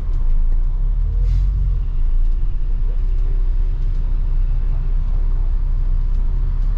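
Bus engine and road noise heard from inside the cabin: a steady low rumble, with a short hiss about a second in.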